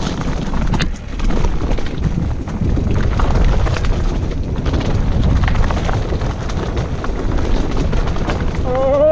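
Wind buffeting the microphone over the rattle and crunch of bike tyres rolling fast over loose gravel and rocks. A short voice is heard at the very end.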